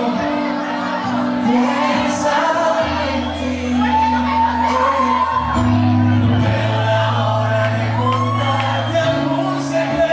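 Live music: a male voice singing a slow ballad over sustained keyboard chords, with shouts and whoops from the crowd.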